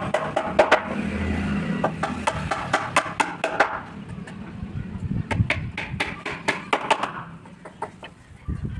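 Rapid light tapping on wood, in two runs of quick sharp strokes with a short pause between them, dying away near the end.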